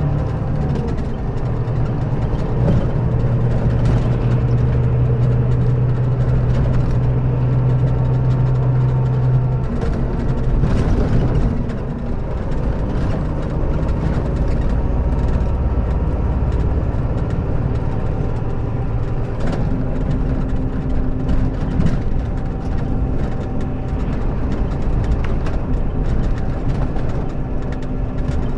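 Scania K400B coach's straight-six diesel engine running steadily. Its note shifts about ten seconds in and again just before twenty seconds.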